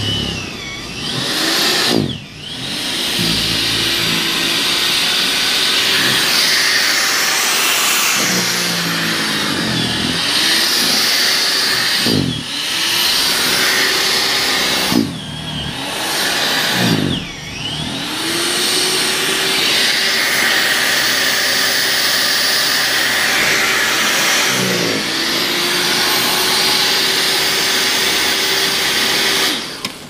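Gas snowblower engine running hard with a hiss of snow being thrown. About five times the engine note drops sharply and climbs back as the machine bites into the snow. Just before the end the engine note stops.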